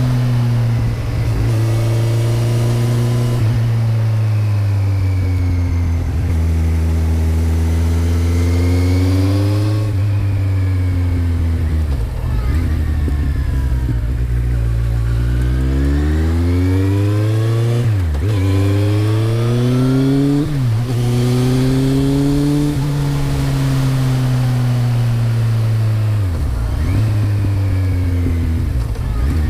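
2008 Kawasaki Z1000's inline-four through a Mivv GP exhaust with the dB killer fitted, running continuously with its pitch rising and falling as the throttle changes. The note drops slowly over the first ten seconds, climbs again, and dips sharply and briefly a few times in the second half.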